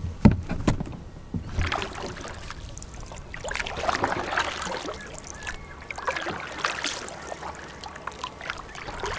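Double-bladed kayak paddle stroking, its blades dipping and splashing in the lake water every couple of seconds, after a few dull knocks in the first second or so.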